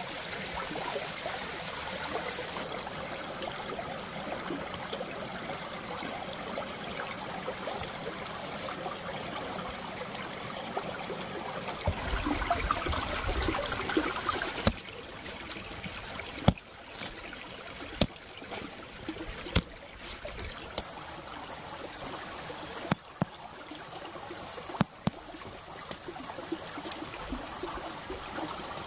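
Small stream trickling over stones, a steady wash of running water, louder for a few seconds around the middle. Sharp clicks and taps come through it now and then in the second half.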